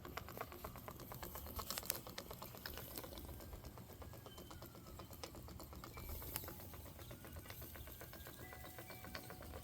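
Small model steam engine running steadily, its piston strokes giving a faint, rapid, even ticking.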